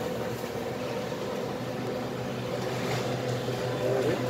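Steady hum of supermarket background noise, from refrigerated display cases and air handling, with a constant low drone.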